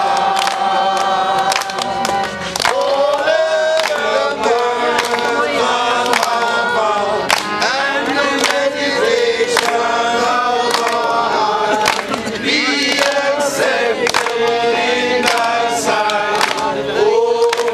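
A mixed group of men and women singing a traditional Serbian folk song together in unison, with hand claps keeping the beat.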